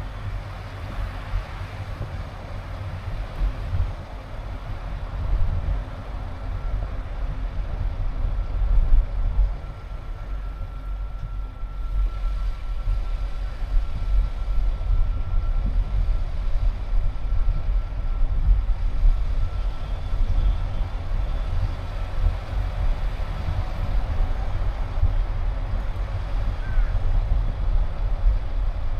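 Car driving along, a steady low rumble of road and wind noise.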